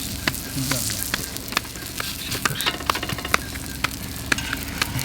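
Bolani frying in hot oil in a pan, a steady sizzle broken by frequent sharp, irregular pops and crackles.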